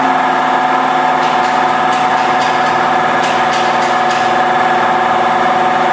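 Duramax V8 diesel engine running steadily above idle on a test stand, fitted with large-bore fittings in both fuel rails. A few faint clicks come through in the middle.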